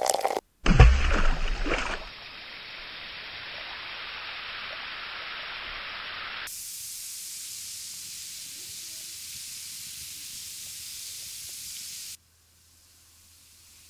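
Water poured from a plastic bottle into a glass, then a steady fizzing hiss of an effervescent magnesium tablet dissolving in the water, which cuts off suddenly near the end.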